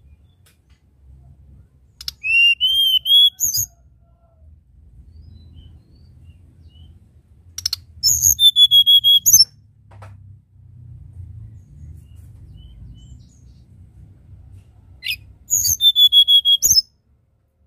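Hill blue flycatcher singing three short whistled phrases, about 1.5 s each and several seconds apart. Each phrase is a sweet, clear whistle framed by sharp high notes.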